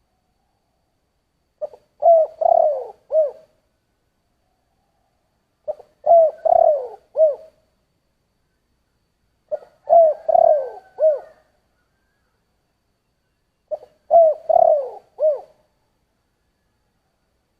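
Spotted dove (cu gáy) of the deep-voiced 'giọng thổ' type cooing: four phrases about four seconds apart, each a short lead note followed by a run of three or four coos, the last one short.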